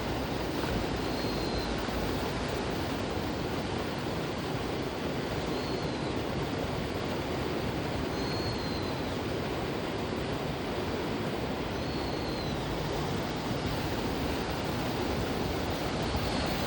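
Steady rushing noise with a faint, short high-pitched note recurring every few seconds.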